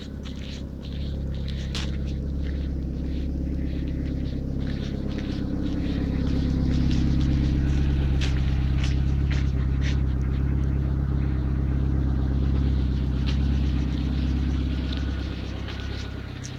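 A motor vehicle's engine rumble that grows louder about a second in, holds through the middle and fades near the end, as if the vehicle passes close by. Short clicks and crackles of footsteps sound over it.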